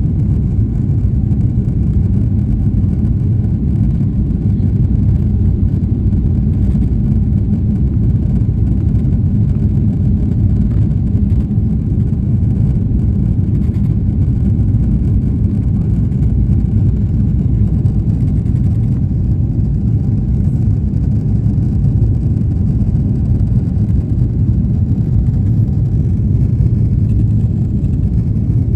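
Jet engines of a Boeing 777-300 airliner at takeoff power, a loud, steady, deep rumble that holds without break.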